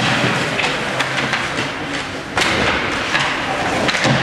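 Ice hockey in an arena: a steady din of rink and spectator noise with sharp clacks of sticks and puck. A loud thud against the boards comes about two and a half seconds in.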